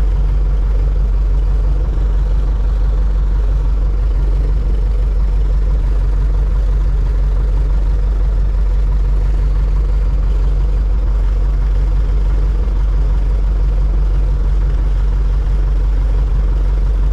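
Light floatplane's piston engine and propeller running steadily at low power as the plane taxis on the water, with a strong low rumble, heard from outside under the wing.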